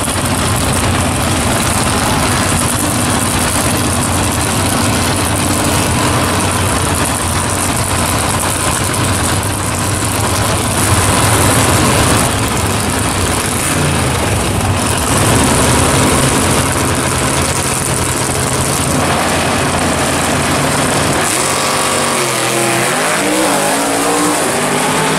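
Drag-race cars, a pro-street Chevy S-10 pickup and a first-generation Ford Mustang, running loudly at the starting line with the engines revved. Near the end the engine pitch sweeps up and down as a car accelerates down the strip.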